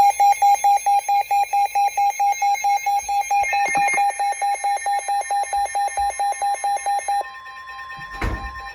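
Weather radio alert alarm beeping rapidly, about five or six beeps a second, set off by an incoming severe thunderstorm warning. A steady alert tone from another radio runs beneath it and carries on alone after the beeping stops, about seven seconds in. A short knock comes near the end.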